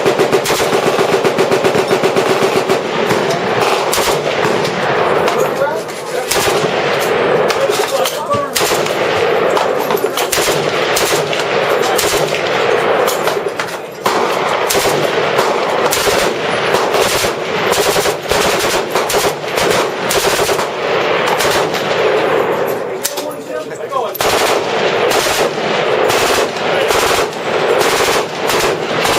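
Machine guns firing long, rapid automatic bursts that run into one another, nearly continuous, with short lulls about six, fourteen and twenty-three seconds in.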